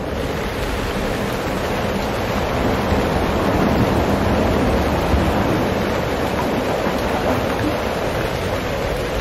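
Strong wind blowing across the microphone, a steady rushing noise that swells a little in the middle.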